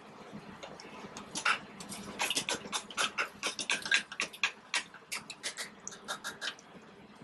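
A spatula scraping and clicking against a metal oven tray as roasting potato pieces are turned over, in a quick irregular run of scrapes and clicks that thins out near the end.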